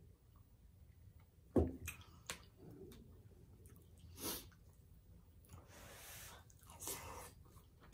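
Faint close-miked eating sounds: a knock about one and a half seconds in as a glass mug is set down on a wooden board, then a fork clicking and scraping in a glass baking dish of chicken pot pie, a soft breath, and a mouthful taken.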